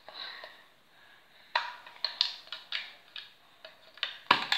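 Small waterproof plastic box being handled and opened: a quick string of sharp clicks and knocks beginning about a second and a half in, loudest near the end.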